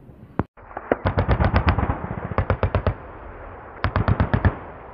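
Machine-gun fire in three short bursts of about five to eight rapid shots each, with pauses of about a second between them, starting about a second in over a low rumble.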